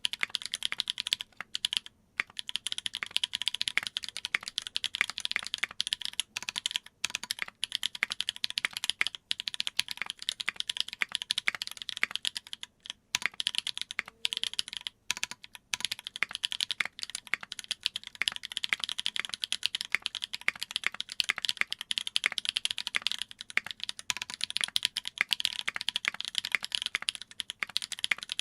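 Continuous fast typing on a Duck Jetfire mechanical keyboard with lubed Holy Panda tactile switches on an aluminium plate and GMK keycaps, the keystrokes coming in dense runs with a few short pauses.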